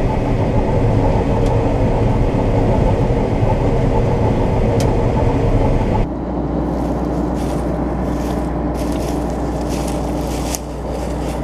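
Combine harvester running steadily while harvesting soybeans. About six seconds in the sound changes abruptly to a lower, steadier engine hum with scattered swishing noises.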